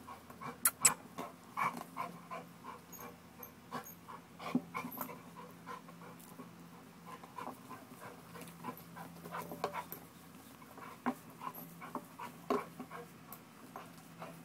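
American bulldog panting hard from exertion, with scattered short clicks and knocks.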